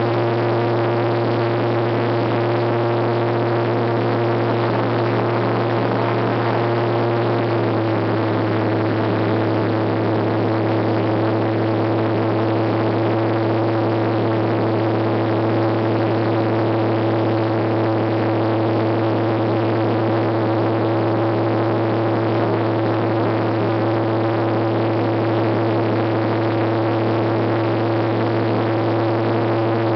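Gyrocopter engine and propeller running steadily at high power during the climb-out after takeoff, heard from inside the cockpit. Its pitch steps down slightly about seven or eight seconds in.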